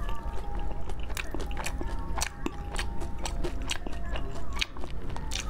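Close-up crunching and chewing of glazed fried meat with a crisp coating: a run of sharp crackling bites and chews, a few each second, over background music.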